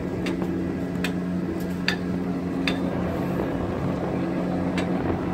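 Steady low hum of ship's machinery with wind and sea noise, broken by a few sharp clicks.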